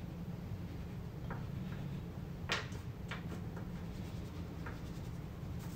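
Pastel stick scratching and rubbing on paper while colouring in, with scattered faint ticks and one sharper click about two and a half seconds in, over a steady low hum.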